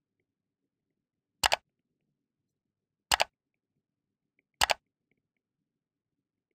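Three sharp mouse-click sound effects, each a quick double click, about a second and a half apart, from an animated subscribe button and bell.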